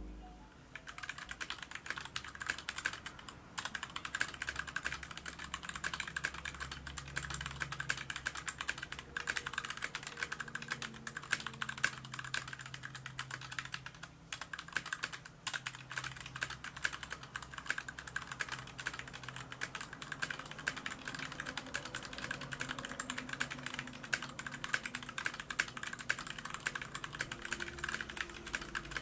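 Rumi61 mechanical keyboard with Gateron Brown tactile switches being typed on at a steady, fast pace: a dense run of key clacks, with brief pauses twice.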